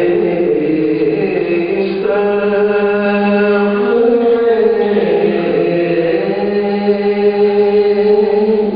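A man's voice singing an Urdu soz-style mourning lament (pursa) in long held notes that slowly rise and fall in pitch.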